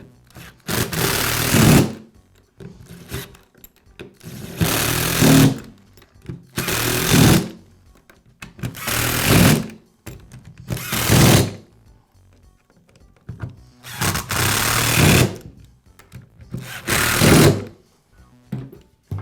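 Power screwdriver or drill/driver running in seven short bursts of about a second each, driving the screws that hold the belt sander's handle housing back in place.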